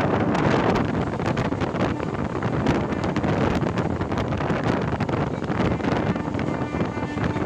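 MEMU electric train on the move: a steady rush of wind on the microphone over the rumble of the carriage, with many quick clicks and rattles from the wheels on the track.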